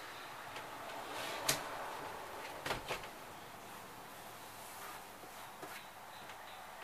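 A few short, sharp clicks and knocks from hand work at a travel trailer's window frame. The loudest comes about one and a half seconds in, then a quick pair near three seconds, with fainter ticks later.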